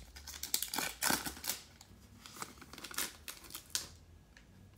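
Foil wrapper of a baseball card pack crinkling as the cards are pulled out, then scattered soft clicks and rustles of the cards being handled. The crinkling is dense for the first second or two and the clicks thin out and stop near the end.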